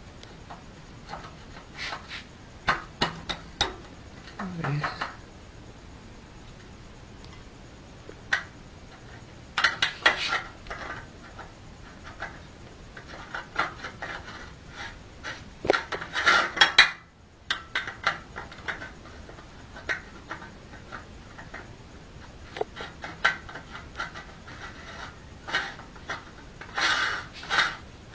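Irregular metal clinks, taps and scrapes as the perforated die plate and its ring are handled and fitted onto the barrel of a horizontal pellet mill.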